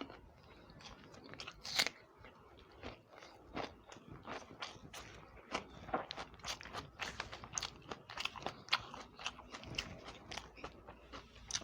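Close-miked chewing and biting of a person eating egg curry and upma, with many irregular wet mouth clicks and smacks, several a second.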